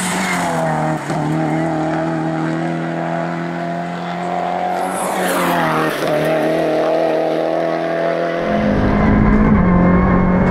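Peugeot 308 Racing Cup's turbocharged four-cylinder engine running hard at high revs on a hillclimb, with brief dips in pitch about one and six seconds in. Near the end the sound turns to the car heard from inside its cockpit, heavier and rougher.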